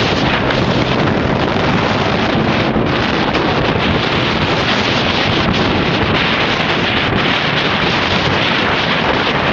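Wind rushing over the microphone, loud and steady, with a faint low hum underneath.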